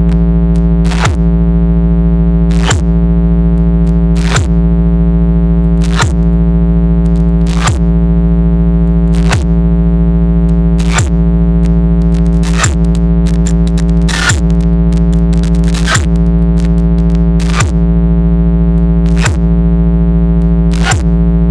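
Loud electronic bass drone played over a DJ sound-box system: a steady low hum with a short falling zap about every second and a half.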